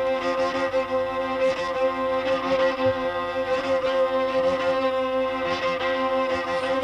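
Music: a steady held drone with several sustained tones layered over it and faint wavering notes on top.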